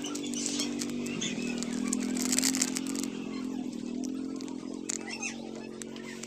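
Steady droning hum of a machine at nearby house construction, with bursts of rustling near the start and about two seconds in.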